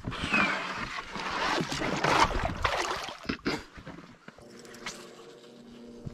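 Handling noise in a kayak as a smallmouth bass is taken off a plastic measuring board and released over the side: about three seconds of rustling and splashing, then a few sharp knocks as the board is put away.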